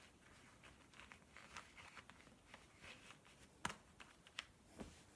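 Faint rustling of a knit shawl as a vegan belt is pulled through a double-ring metal buckle and cinched at the waist, with a few small clicks, the sharpest about three and a half seconds in.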